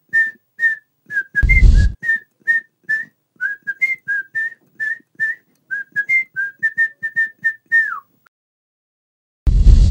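A person whistling a jaunty tune in short, clipped notes that hop between a few pitches and end in a falling slide about eight seconds in. A loud, dull thump comes under the whistling about a second and a half in, and a short burst of noise comes just before the end.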